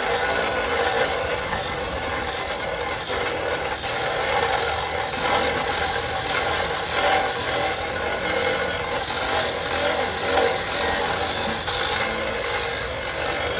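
Power saw grinding steadily through a steel rail, cutting an excess piece off a replacement rail so it fits the gap left by the broken one.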